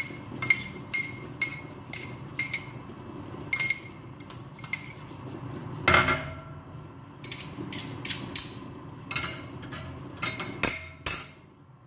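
Metal spoon clinking and scraping against a small glass bowl as chopped red onion is scraped out, in a run of sharp ringing clinks. A heavier knock comes about six seconds in, followed by more spoon clinks.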